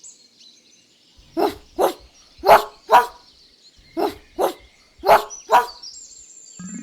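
A dog barking eight times in four quick pairs, with faint birdsong chirping behind.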